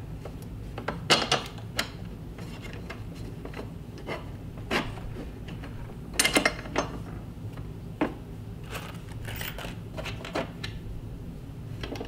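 Irregular metal clicks and light clanks as steel TV wall-mount brackets and their crossbar are handled and fitted together, over a low steady hum.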